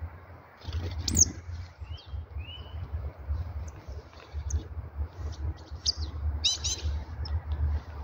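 Small songbirds calling: scattered short chirps and calls, a sharp falling call about a second in and a quick cluster of calls near the end, over a steady low rumble.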